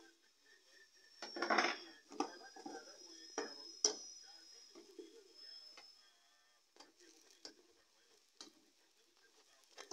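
Metal spoon scraping and clinking against a metal frying pan as a chapati cooks in it: a handful of irregular sharp clinks and scrapes, the loudest about a second and a half in.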